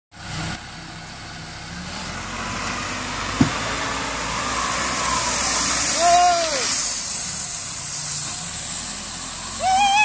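Self-loading concrete mixer truck's engine running as its front loader bucket pushes into a gravel pile, with the gravel crunching and scraping as it is scooped. A single sharp knock comes about three and a half seconds in, and a short rising-and-falling voice call at about six seconds.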